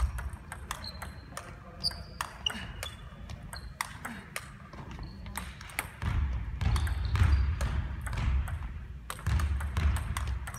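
Table tennis rally: a celluloid-type ball clicking sharply off the bats and the table, many hits in irregular succession from more than one table, some with a short high ping. A low rumble comes in about halfway through and is the loudest part from then on.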